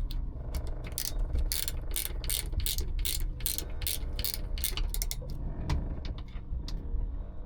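Socket ratchet wrench clicking in quick, repeated strokes as a nut is turned, over a steady low hum.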